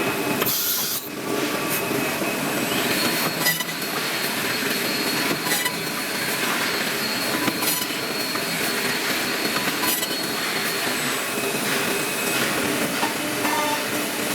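CNC six-side drilling machine running, a steady mechanical din with a high whine from about three seconds in until about eleven, and a sharp click roughly every two seconds.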